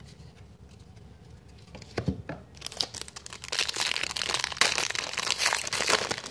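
A trading-card pack wrapper being torn open and crinkled, starting about three and a half seconds in, after a couple of light clicks from cards being handled about two seconds in.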